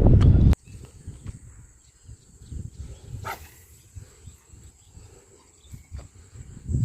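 Faint outdoor ambience with a steady high-pitched insect drone, low rumble and a few soft clicks. A loud rumble of wind on the microphone cuts off abruptly about half a second in.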